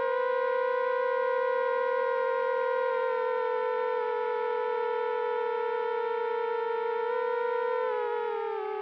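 Whine of the FPV quadcopter's four brushless motors (RCX 2205 2300KV) and propellers in flight, a steady high tone whose pitch sags a little near the end as the throttle eases.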